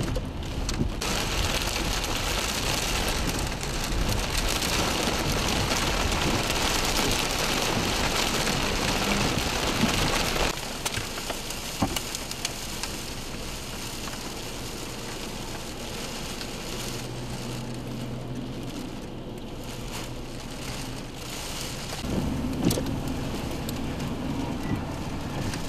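Heavy hail and rain pelting a vehicle, a dense steady clatter that drops off abruptly about ten seconds in, leaving a quieter patter with a low hum underneath.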